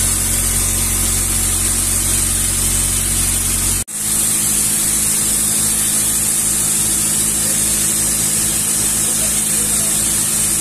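Fishing boat's inboard engine running steadily under way, with the rush of the wake and wind. The sound drops out for an instant a little under four seconds in, then carries on.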